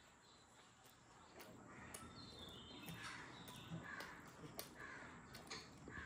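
Faint crows cawing, a repeated series of short calls starting about two seconds in, over near silence with a few faint clicks.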